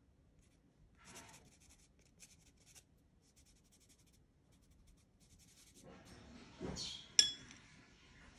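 Soft pastel stick scratching across textured pastel paper in short strokes, with louder rubbing near the end. Then a single sharp clink with a short ring as the pastel stick is set down on a porcelain plate.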